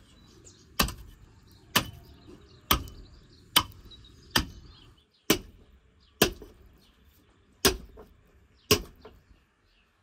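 A hatchet chopping down through the backbone of a hanging lamb carcass, splitting it in half. There are nine sharp chops, mostly about a second apart, with a slightly longer pause near the end.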